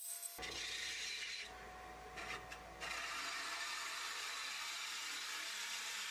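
A gouge cutting the inside of a spinning monkey pod bowl on a wood lathe, with a steady hiss of shavings being cut. The hiss starts suddenly just after the beginning, eases off about a second and a half in, and comes back fully about three seconds in.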